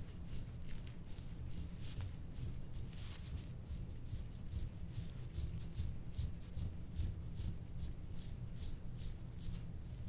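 Metal instrument-assisted soft-tissue scraping tool stroked over oiled skin of the back: a soft, rhythmic scraping swish, about three strokes a second.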